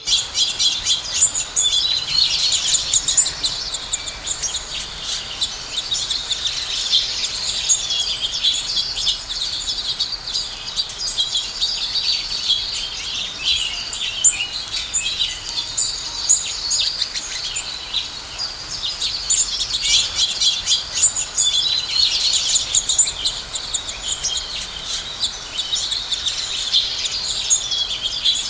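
A group of house sparrows chirping continuously, many short chirps overlapping, busiest about two seconds in and again around twenty seconds in.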